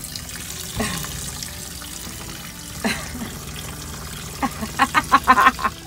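Water running steadily from a tub faucet and splashing onto feet in a small shower tub. A quick run of short, louder sounds comes near the end.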